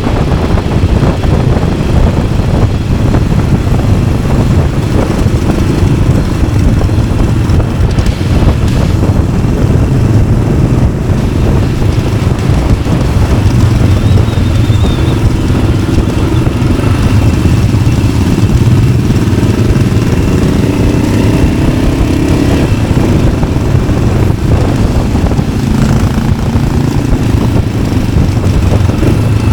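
Yamaha XT600's single-cylinder four-stroke engine running steadily through an Arrow exhaust as the motorcycle rides along, its pitch rising and falling a little with the throttle.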